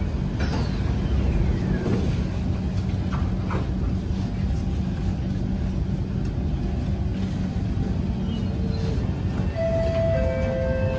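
Interior of a Kawasaki C151 metro car at a station platform, with the car's equipment giving a steady low hum. The doors slide shut with a couple of knocks a few seconds in. Near the end several steady tones start up from the train's traction equipment as it readies to depart.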